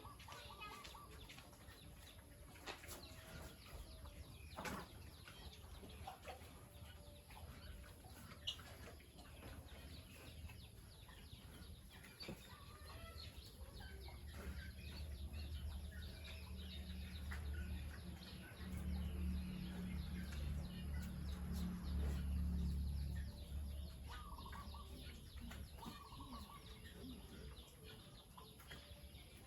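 Faint farmyard animal calls and scattered small knocks, with a low steady hum that swells for several seconds in the middle and then fades.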